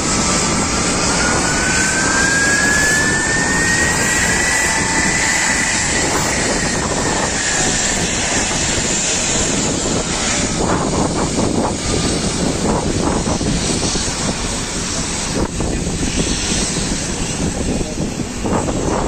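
Antonov An-124's four Progress D-18T turbofan engines running as the aircraft taxis, with a high whine that rises in pitch over the first five seconds as the engines spool up, then fades. In the second half, gusts of wind buffet the microphone.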